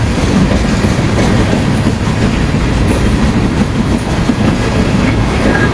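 Union Pacific manifest freight train rolling past, a loud, steady rumble of wheels on the rails.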